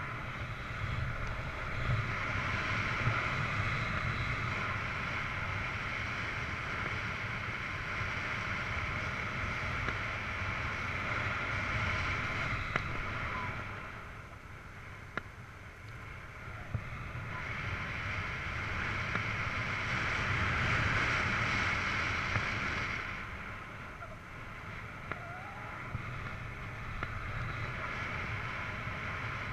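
Wind rushing over the camera of a paraglider in flight. It swells and eases with the airflow: loud for about the first dozen seconds, dropping off around the middle, rising again and then fading near the end, with a few faint clicks.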